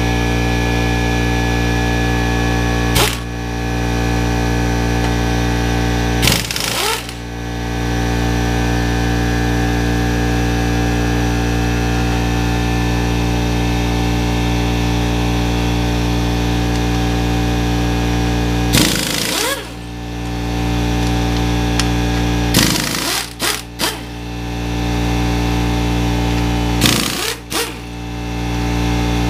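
Air compressor running steadily, broken by several short bursts of a pneumatic impact wrench rattling head bolts loose on a Jeep CJ5 engine's cylinder head. The compressor dips briefly after each burst.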